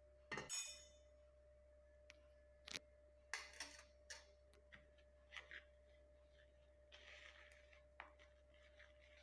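Steel tea strainer and spoon clinking against each other and the bowl: a ringing metal clink about half a second in, then scattered lighter clicks and scrapes as a spoon stirs powder into tea decoction.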